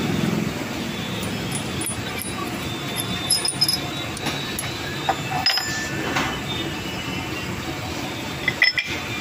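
Sharp metal clinks and taps as a workpiece is handled and set in a metal lathe's chuck: a few about three seconds in, more around five to six seconds, and a quick cluster near the end, over a steady background hum.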